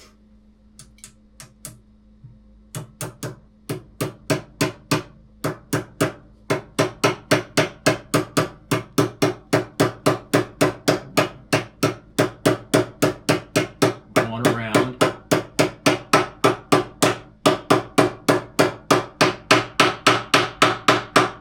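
Rapid, steady hammer strikes driving a new tapered-roller-bearing outer race into a scooter's steering head. A few light taps first, then about three to four blows a second that grow louder as the race goes in toward its seat.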